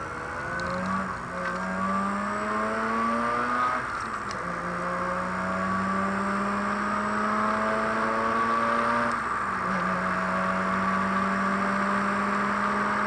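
Mazda RX-8's twin-rotor Wankel rotary engine heard from inside the cabin, pulling hard with its note rising steadily. It drops back twice, about four and nine and a half seconds in, as the driver upshifts, then climbs again. A steady hiss of tyres on the wet track runs under it.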